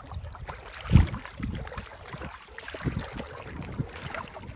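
Shallow seawater splashing as a golden retriever wades through it, with wind on the microphone. A loud low thump about a second in.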